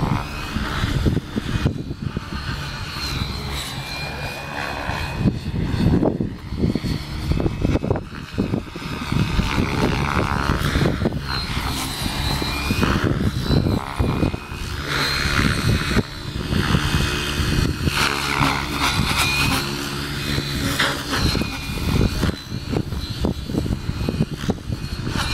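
Electric RC helicopter with an Align 700MX motor in flight: the motor and rotor whine glides up and down in pitch as it manoeuvres, over strong wind buffeting the microphone.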